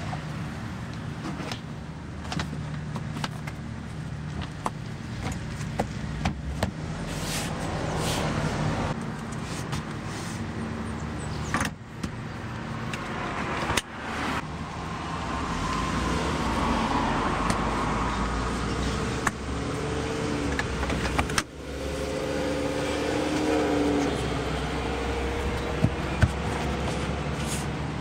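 Hands shifting and pressing a molded rubber Toyota RAV4 cargo liner into place on the cargo floor: scattered light taps and rubbery rustles over a steady low hum.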